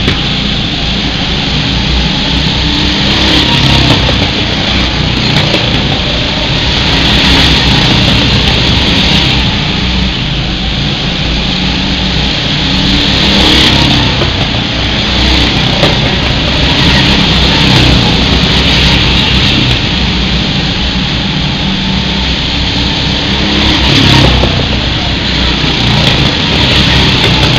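Several go-kart engines running as the karts lap an indoor track, swelling louder each time a kart passes close by and easing off between passes.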